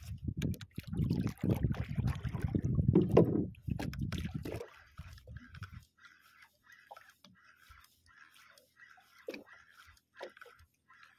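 Water sloshing against the hull of a small outrigger boat, loud for the first four seconds or so and then dying down, leaving only faint scattered clicks.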